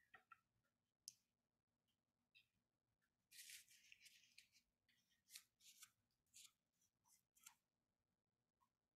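Near silence: room tone with faint scattered clicks and a brief soft rustle about three and a half seconds in.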